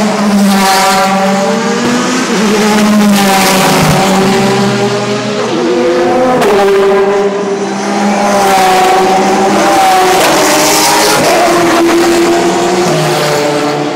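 Race cars on the warm-up lap passing one after another, several engines overlapping, each engine note rising and falling as the car goes by.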